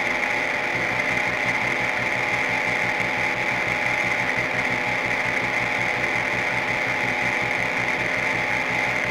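Experimental noise music: a dense, steady, machine-like rattle pulsing fast and evenly under a bright, buzzing drone.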